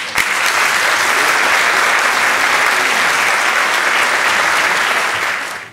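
Audience applauding steadily, stopping abruptly near the end.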